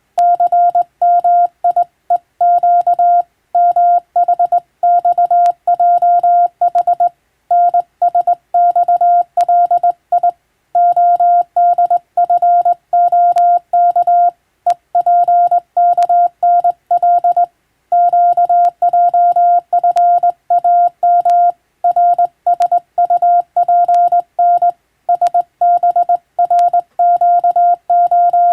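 Morse code (CW) tone at about 700 Hz, keyed in rapid dots and dashes with short pauses between words, sending English-text telegram practice.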